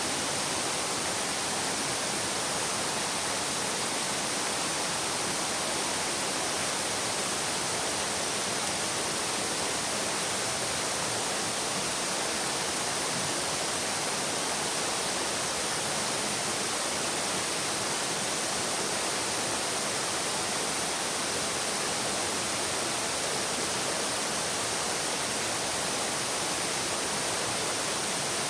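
Babbling brook: shallow running water making a steady, unbroken rush.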